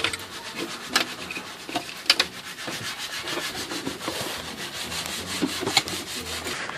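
Plastic glove box being worked out of a BMW E90 dashboard: plastic parts rubbing and scraping against each other, with many small clicks and a few sharper knocks.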